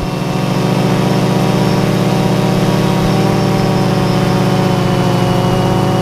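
Multirotor drone's electric motors and propellers humming at a steady pitch while it hovers and drifts slowly, the hum taking over from wind rush right at the start.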